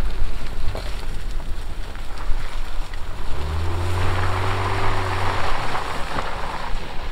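Honda Ridgeline TrailSport's 3.5-litre V6 engine pulling the truck away up a dirt trail, its note rising about three seconds in and then holding steady. Tyre noise over the dirt and dry leaves swells in the middle and fades as the truck moves off.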